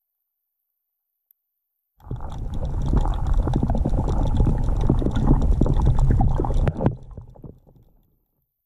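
Muffled low rumbling and crackling of water and handling noise on a camera's waterproof housing held underwater. It starts suddenly about two seconds in, runs loud for about five seconds, then fades away.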